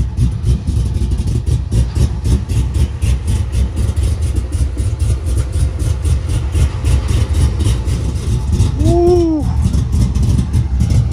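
Pickup truck engine running loudly at a steady speed, its exhaust pulses strong and even.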